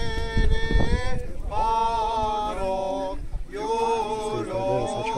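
Unaccompanied male liturgical chant of an Armenian Apostolic memorial service, sung in long held phrases with short breaks about a second and a half in and again near three and a half seconds. A low rumble sits under the first second and a half.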